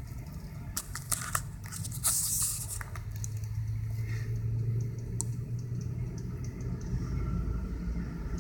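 Rabbits chewing and tearing at grass: small crisp crunching clicks, densest in the first few seconds, with a rustling tear about two seconds in, over a steady low hum.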